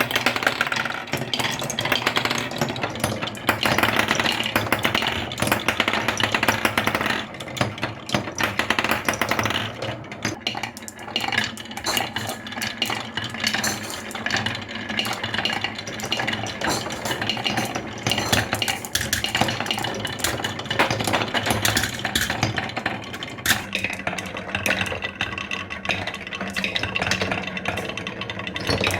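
Many marbles rolling and clacking down a wooden HABA marble run, a continuous dense clatter of small clicks and knocks.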